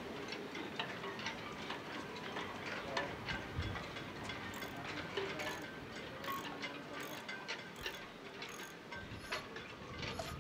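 Light metallic clicks and ticks of a hand tool working a metal fitting on a sailboat mast. They are uneven at first, then settle into a regular click a little more than once a second from about halfway through.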